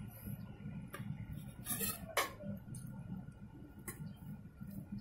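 A handful of faint clicks and taps, the loudest about two seconds in, over a steady low background hum.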